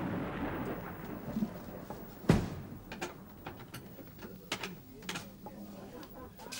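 Cloth rustling as hands rummage through an old wooden chest, then one loud wooden knock a little over two seconds in as the lid comes down, followed by scattered small clicks and taps.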